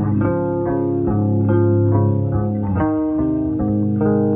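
Background music: a melody of quick plucked guitar notes over a steady bass line.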